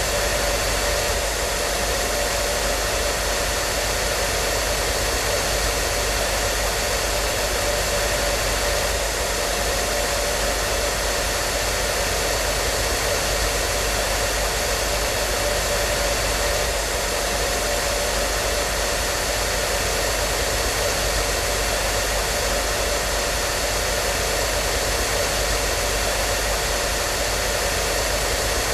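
Hair dryer running continuously: an even rush of blown air with a few faint steady tones in it and a low hum underneath, never changing.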